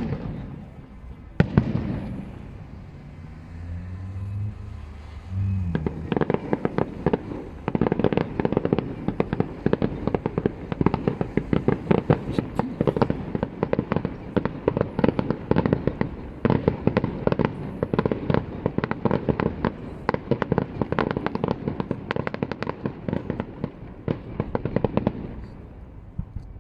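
Professional fireworks display. Two loud bangs near the start, then from about six seconds a dense, rapid barrage of shell bursts and crackling that runs for about twenty seconds and stops shortly before the end.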